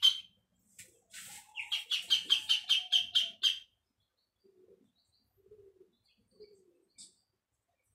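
Duckling stuck in a toilet bowl peeping, high-pitched: one peep at the start, then a fast run of about eight peeps from about a second and a half in, the calls of a trapped chick.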